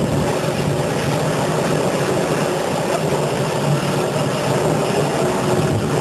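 Steady mechanical drone of machinery running in a carpet-washing plant, a loud even noise with a low hum under it.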